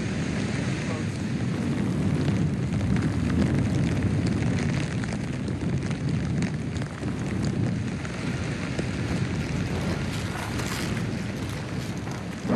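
Strong wind buffeting the microphone, a dense, steady rumble, with a spell of crackling and rattling about ten seconds in.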